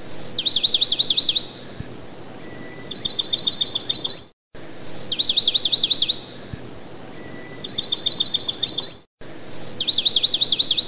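Songbird recording played as a loop: each pass opens with a clear whistled note, then a run of quick falling notes, and later a fast series of sharp repeated notes. The same phrase comes round again about every four and a half seconds, with a brief silence at each join.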